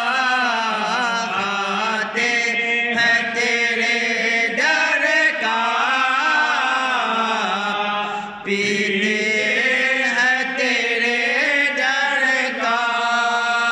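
A man chanting a naat, an Urdu devotional poem in praise of the Prophet, sung unaccompanied in long, drawn-out melodic phrases.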